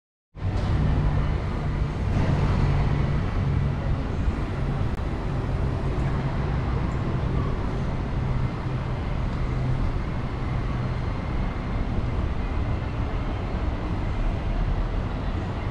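Outdoor city traffic ambience: a steady low rumble of road vehicles that comes in abruptly just after the start and carries on evenly.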